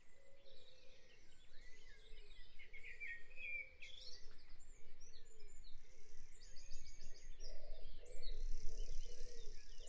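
Dawn chorus recording of many wild birds singing and chirping together, with softer, lower calls underneath.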